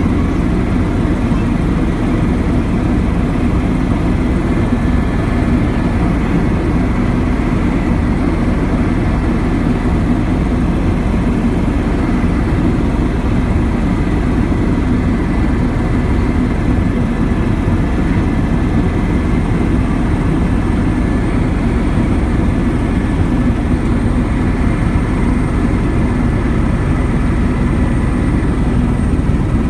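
Steady engine drone of a small aircraft, heard from inside its cabin in flight.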